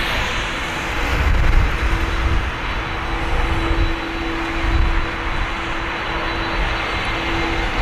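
Jet engines of an Airbus A330-200 running at high power, a loud steady rush of noise with a faint steady tone in it and an uneven low rumble underneath.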